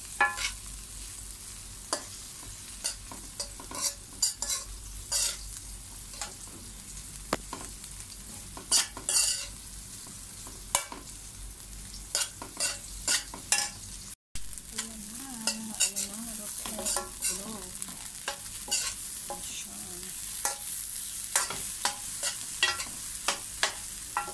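Fried rice with chopped hot dog and egg sizzling in a stainless steel pan, under irregular scrapes and clinks of a metal spoon stirring and tossing it against the pan. The sound drops out for an instant about 14 seconds in.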